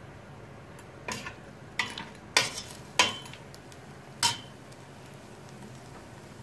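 A spoon knocking and clinking against the side of a stainless steel pot while stirring green beans: about five sharp clinks over three seconds, each ringing briefly.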